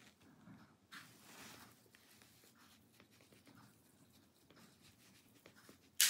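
Thin plastic pry tool scraping along the seam of a laptop's bottom panel while prying at the cover clips, with a small click about a second in and a sharp snap near the end as a clip pops loose.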